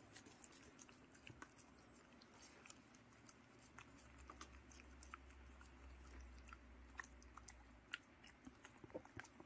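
Faint dog chewing and licking soft steamed sweet potato from a hand: soft, irregular smacking clicks.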